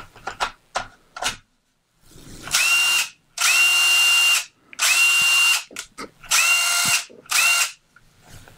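A cordless DeWalt power tool, fed by a Hercules battery through a battery adapter, clicking as the battery is fitted and then run in five short trigger pulls, its motor quickly spinning up to a steady whine each time: the tool powers up, so the adapter works with this battery.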